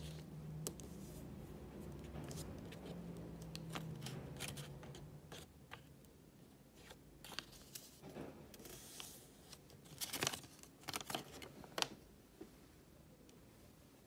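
Origami paper being folded and creased by hand: scattered crisp rustles and sharp crinkling clicks of the paper, busiest a little past the middle.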